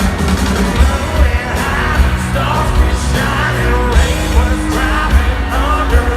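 Live country rock band playing loud, with a male lead vocal singing over electric guitars and a steady kick-drum beat.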